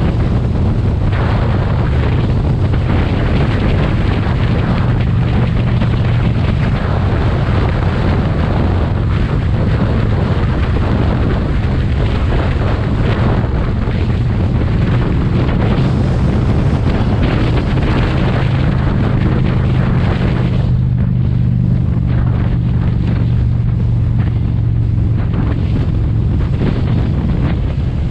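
Motorcycle engine running at a steady cruising pace under heavy wind rush on the microphone. About twenty seconds in the wind hiss eases while the engine's low drone carries on.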